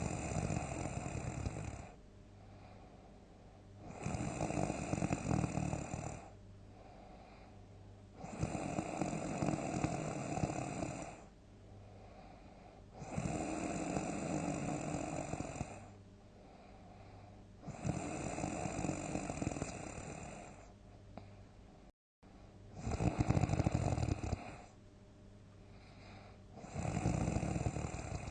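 A sleeping person snoring loudly: a long snore every four to five seconds, seven in all, each lasting two to three seconds, with quiet breathing between them.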